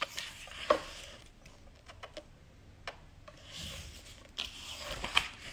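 Pages of a large photobook being turned by hand: paper rubbing and sliding, with a few short sharp flaps as pages are lifted and laid down.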